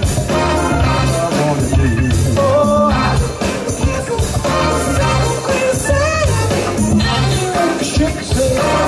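Live soul band playing a classic Motown song: a singer holds wavering sung lines over a steady bass and beat.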